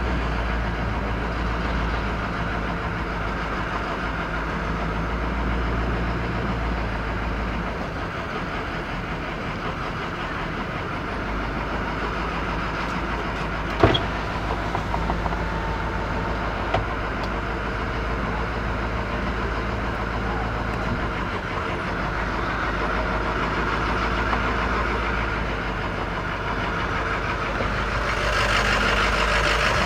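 Fire engine's engine running as it comes up the street, heard from inside a car, as a steady low rumble. There is one sharp click about halfway through, and it gets louder near the end as the truck pulls alongside.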